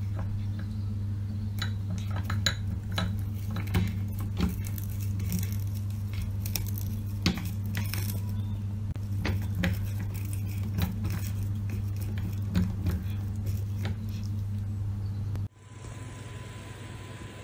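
A cat chewing on toothbrushes standing in a glass cup, the brushes clicking and clinking irregularly against the glass, over a steady low hum. Near the end it cuts to a quieter room hum.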